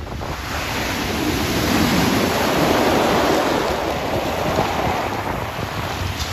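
Sea surf breaking and washing up a pebble beach, a dense rush that swells over the first couple of seconds and then holds, with wind rumbling on the microphone.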